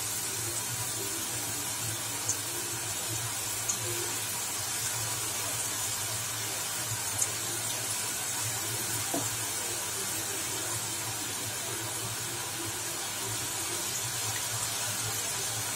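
Hot oil sizzling steadily as drops of gram-flour batter fall through a perforated ladle and fry into boondi, with a few faint clicks.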